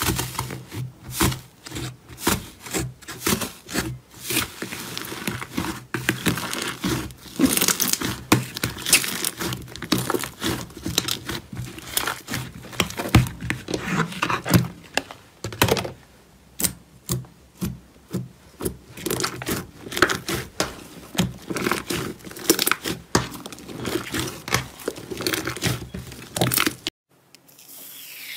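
Fingers poking, squeezing and stretching a fluffy cloud-style slime, making irregular crinkly crackles and tearing sounds. Near the end an aerosol can hisses as it sprays foam.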